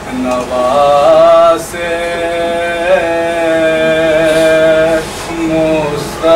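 A man chanting an Urdu mourning lament (noha) in a slow melodic recitation, drawing out long held notes, with a short break about a second and a half in.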